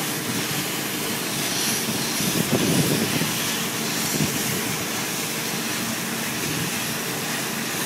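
Steady roar at a large burning building: the noise of the fire mixed with the steady drone of engines, most likely fire-engine pumps. A louder, crackling stretch comes about two and a half seconds in, with a shorter one around four seconds.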